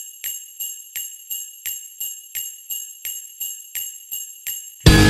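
Jingle bells shaken in a steady rhythm, about three shakes a second, ringing brightly. Just before the end, loud music cuts in abruptly.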